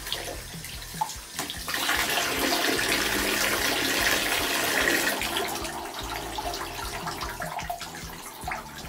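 Bathtub tap running, its water splashing over long hair as it is rinsed under the stream. The rushing grows louder from about two seconds in and eases back after about five seconds.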